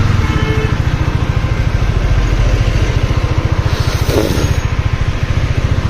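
Motorcycle engine running at low speed with a fast, even pulse, as the bike is moved forward a short way. The sound cuts off suddenly at the very end.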